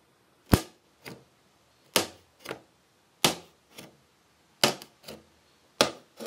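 A wooden skewer punching holes in plastic wrap stretched tight over a plastic container: sharp pops in pairs, a loud one then a fainter one, about one pair every second and a half.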